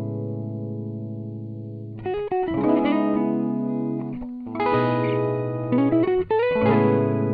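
Background music: guitar chords struck and left to ring out, a new chord every second or two, each fading slowly.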